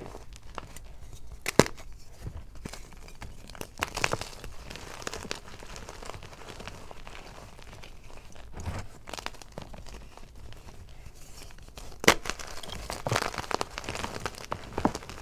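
Hands crushing and crumbling hard blocks of gym chalk: dry, gritty crunching and crumbling with sharp snaps as chunks break, the loudest about a second and a half in and another late on.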